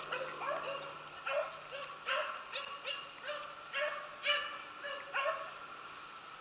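Beagles barking on a rabbit chase: short, repeated yips, a couple a second and sometimes overlapping, from hounds working the scent trail.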